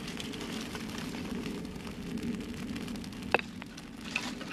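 Small campfire of split kindling crackling faintly over a steady low rushing noise, with a sharp wooden knock a little over three seconds in and a lighter tick near the end as the kindling is handled.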